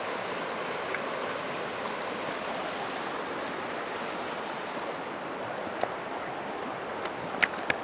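Shallow river water rushing over a rocky riffle, a steady rushing noise, with a few short sharp clicks near the end.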